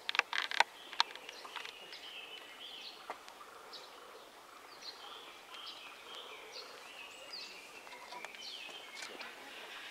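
Small birds chirping in short high calls, some sweeping downward, scattered throughout over a faint background hum. There are a few sharp clicks in the first second.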